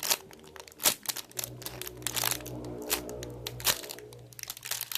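Background music with steady held low notes, under repeated sharp crinkles and clicks of plastic being handled.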